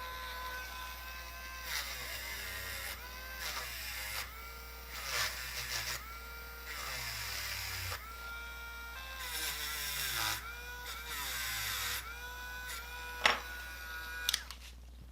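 Dremel rotary tool running at high speed, its whine dipping in pitch again and again as the bit is pressed onto the diecast car body to grind off corrosion, with bursts of grinding hiss. A few sharp clicks near the end.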